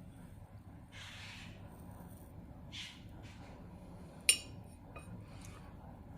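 A paintbrush clinking once against a paint dish about four seconds in, with a couple of soft swishes before it, as the small brush is loaded with colour.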